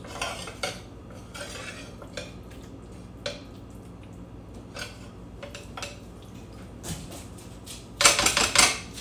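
Spatula stirring and spreading a noodle mixture in a glass baking dish: scattered light scrapes and clicks against the glass, with a louder stretch of clatter near the end.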